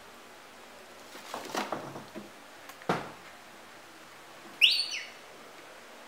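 Plastic bags rustling and a single knock as a baby monkey clambers about an open refrigerator. Later comes a short, loud, high-pitched squeal, the loudest sound here.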